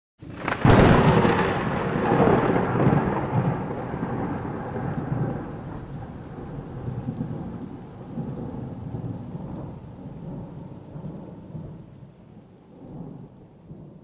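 A thunderclap breaks sharply about a second in and rolls on as a long rumble that slowly dies away, with rain falling throughout. A fainter roll of thunder swells near the end.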